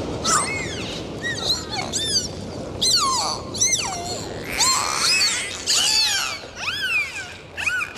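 Many short, high animal calls in quick succession, each rising and then falling in pitch, some overlapping.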